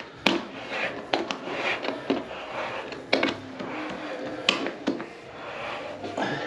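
Plastic shower waste fitting being screwed by hand into the tray's trap: plastic threads scraping and clicking, with several sharp clicks spread irregularly among the scraping.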